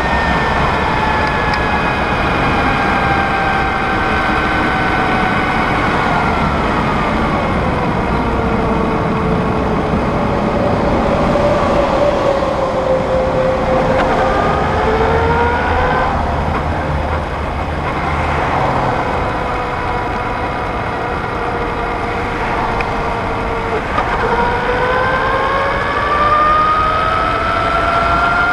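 Brammo Empulse R electric motorcycle's drive motor whining. Its pitch falls as the bike slows in heavy traffic, then rises twice as it pulls away again, over a steady low rumble of wind and road noise.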